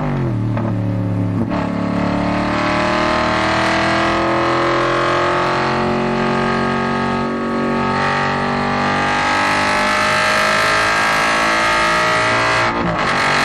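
Aston Martin GT4's V8 engine heard from inside the cabin. The revs fall as the car slows at the start, then climb steadily under hard acceleration for about eleven seconds, broken by a gear change about 1.5 seconds in and another shortly before the end.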